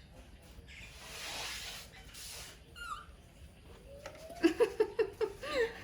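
Pet baby monkey crying: a run of short, loud, pitched calls repeated about five times a second in the last second and a half, after a soft hiss and a faint squeak earlier.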